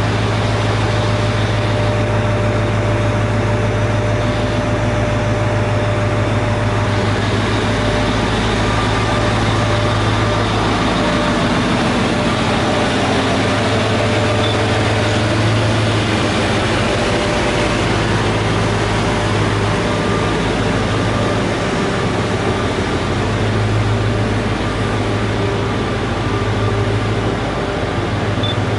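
Trenitalia Minuetto diesel multiple unit standing with its diesel engines idling: a steady low hum with a few faint steady tones above it.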